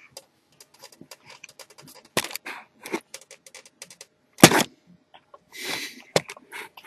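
Handling noise of a camera being grabbed and moved: a scatter of small clicks, taps and rubs, with one sharp thump about four and a half seconds in.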